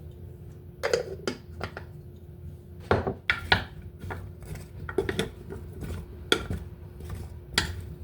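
Kitchen clatter of dishes and seasoning containers, about ten sharp clinks and knocks spread irregularly, as vegetables in a pan are seasoned. A faint steady hum lies underneath.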